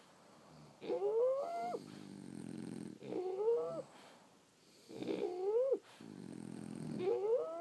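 French bulldogs snoring in their sleep, about one breath every two seconds. Each snore is a low rough rattle that turns into a whistling, wheezy tone, rising in pitch and then cutting off sharply.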